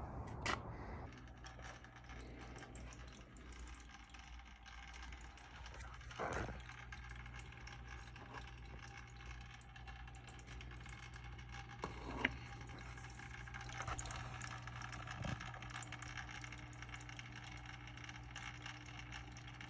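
Faint workshop room tone: a steady low hum, with a few soft knocks and rattles of things being handled.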